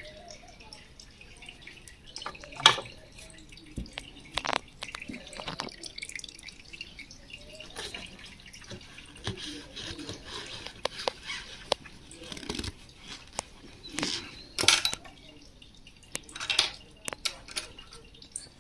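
Old oil draining from the open sump of an Emel industrial sewing machine into a collecting bowl, dripping with irregular ticks and clicks during an oil change.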